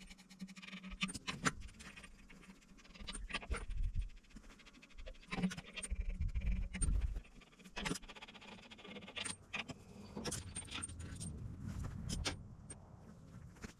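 Irregular metallic clicks and clinks of the bolts being undone on the outer dual wheel rim of a Chamberlain Countryman tractor, with spells of low rumble between them.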